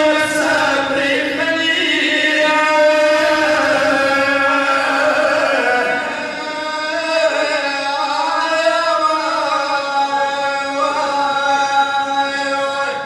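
Men chanting a Pashto noha, a Muharram mourning lament, through microphones, in long drawn-out melodic phrases.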